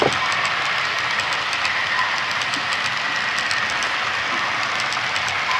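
Model freight cars rolling steadily past close by, their wheels clicking in a fast, regular patter over the track with a constant whir.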